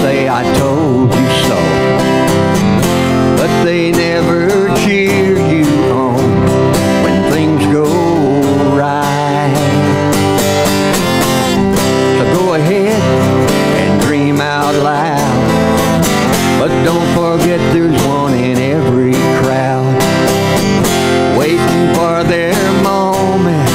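A man singing a country gospel song while strumming an acoustic guitar.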